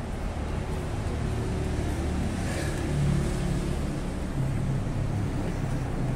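City street traffic: car engines running close by, with a vehicle passing about two and a half seconds in.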